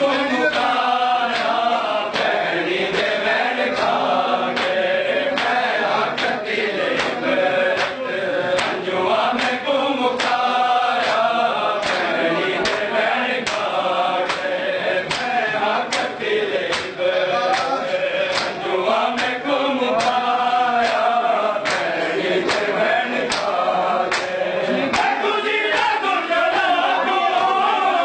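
A group of male mourners chanting a noha in unison, with regular sharp hand slaps of matam (chest-beating) keeping time with the chant.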